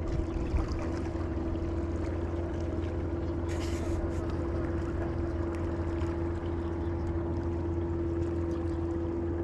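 Boat engine running steadily at a constant pitch, a low drone with a steady hum above it. A brief hiss sounds about three and a half seconds in.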